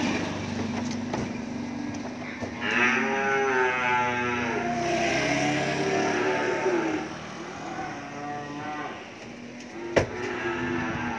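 Cattle lowing: one long moo that rises and falls, starting about two and a half seconds in and lasting about four seconds, then a shorter moo a little later. A single sharp knock near the end.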